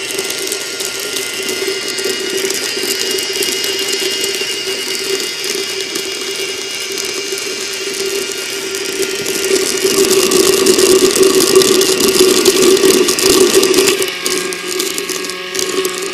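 Homemade K'nex ball mill running at fast speed: a small electric motor hums steadily, and the plastic K'nex gears click as they turn the metal tennis-ball container, in which four steel ball bearings tumble through the black powder. The sound grows louder for a few seconds near the end.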